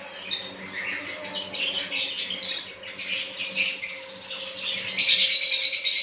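A flock of caged small parrots chirping and squawking, the calls growing into a dense, continuous chatter about halfway through, over a steady faint hum.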